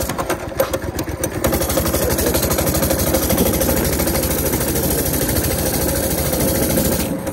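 A Baja Warrior minibike's small single-cylinder four-stroke engine running steadily under way on a test ride, with a fast, even firing beat. The beat is a little uneven for the first second or so, then settles.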